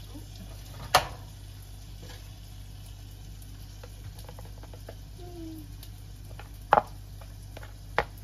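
A spatula scraping scrambled eggs across a nonstick frying pan and onto a toddler's divided plate, with scattered clacks of the utensil against the pan and plate. The loudest clack comes about a second in, and two more come near the end.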